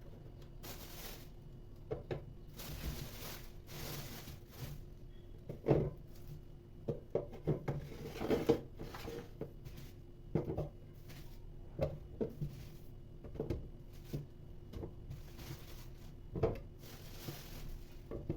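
Kitchen items being handled and set down: scattered light knocks and clatter, with brief rustling swishes in between.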